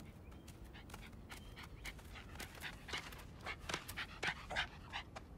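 A wolfdog cub panting in quick, short breaths, getting louder from about halfway through.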